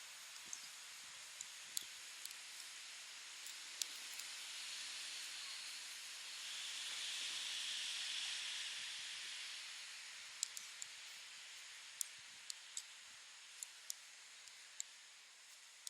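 Metal knitting needles clicking together at irregular moments, over a steady outdoor hiss that swells and fades away again around the middle.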